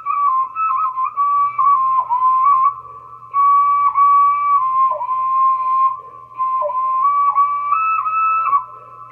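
Small two-hole clay ocarina playing a clear, high whistle tone that steps between a few nearby notes, with several quick downward swoops in pitch. Short pauses for breath fall about three seconds in and near the end.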